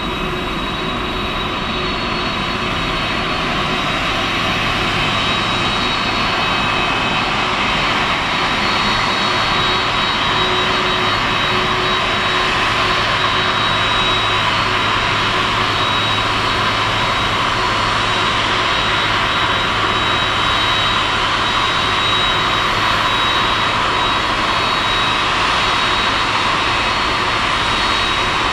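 Boeing 767-300's twin turbofan engines running at low taxi thrust, a steady rushing noise with a high whine on top. It grows a little louder over the first several seconds, then holds steady.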